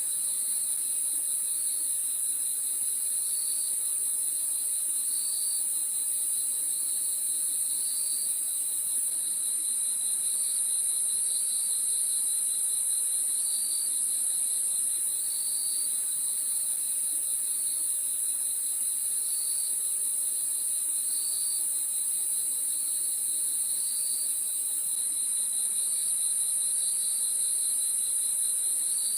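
Crickets chirping: a steady high trill with short, evenly paced chirps about every two seconds.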